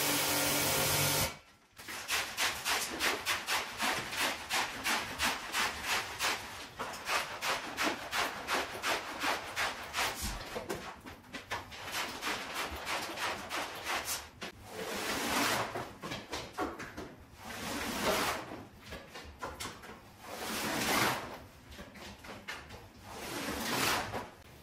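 Intro music cuts off about a second in, then a stiff brush scrubs a dirty shaggy rug in quick, scratchy strokes, about three a second. Later the strokes become slower and longer, each swelling and fading.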